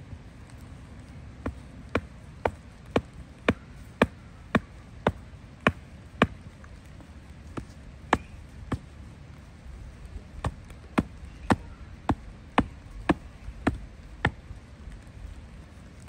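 Regular chopping strikes, about two a second, in two runs with a short break between them.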